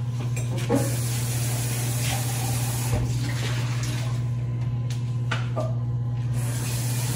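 Vertical slow juicer's motor running with a steady low hum, with a couple of light knocks.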